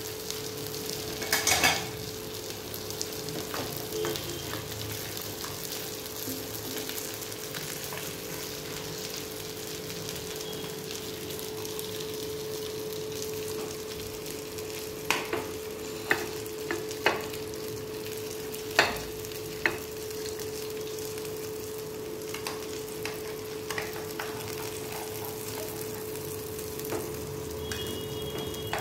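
Small bata fish sizzling in butter in a non-stick frying pan, a steady hiss over a constant low hum. Between about 15 and 20 seconds, several sharp clicks of a metal spatula against the pan and plate as the fish are lifted out.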